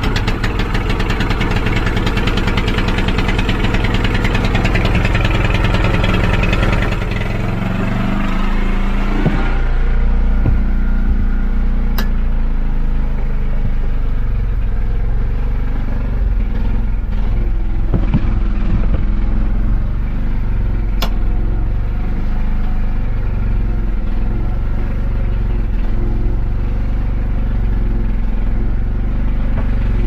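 Fishing boat's generator engine catching abruptly and running loud. It is harsh and rough for the first several seconds, then settles to a steady run about seven seconds in.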